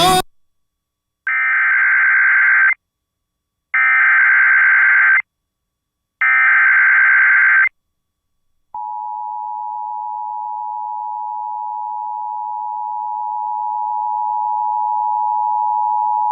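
Emergency Alert System SAME header: three bursts of digital data tones, each about a second and a half with short gaps between. About a second later the steady two-tone EAS attention signal starts and grows slightly louder, announcing a severe thunderstorm warning.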